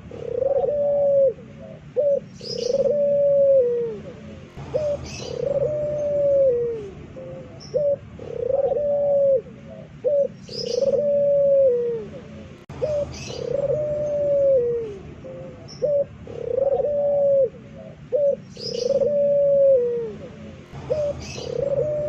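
Puter pelung (domestic ringneck dove) cooing loudly over and over, a long coo every second or two, each sliding down in pitch at its end.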